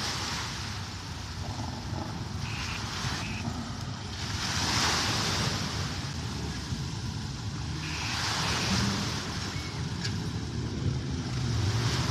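A motor vehicle's engine running with a steady low rumble, with two louder swells of rushing noise about four and eight seconds in.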